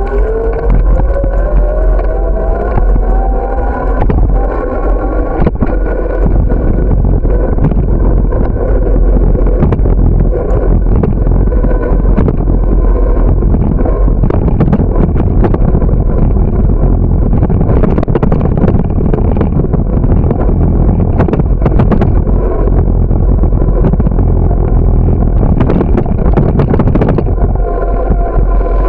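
Loud, continuous wind buffeting and road rumble on the microphone of a camera riding on a moving bicycle, with frequent sharp rattles and knocks from bumps in the pavement through the middle and later part. In the first few seconds a whine rises in pitch.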